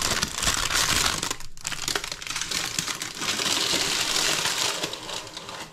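Baking parchment crinkling and rustling as a loaf sitting on it is handled and lowered back into an air fryer drawer, with a short lull about a second and a half in.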